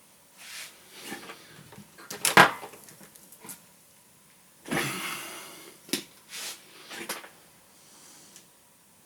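Handling noises from work on an open reel deck on the bench: scattered clicks and knocks, the sharpest about two and a half seconds in, and a short rustle around five seconds in.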